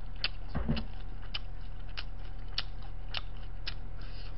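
A person chewing dumplings close to the microphone: soft, sharp mouth clicks about twice a second over a steady low hum. There is a brief low thud about two-thirds of a second in.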